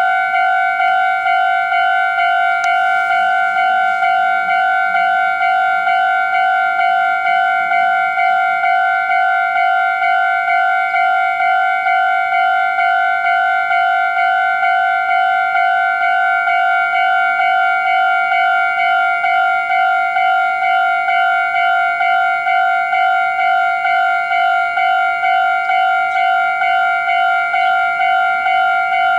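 Japanese railway level-crossing electronic warning bell ringing, a high ding repeating evenly about twice a second without stopping: the crossing is active for an approaching train.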